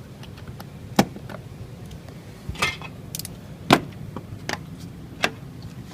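Sharp clicks and knocks of the hardware clips on a casement window's sash being pried and popped off. There are four or five separate clicks, the loudest a little past the middle.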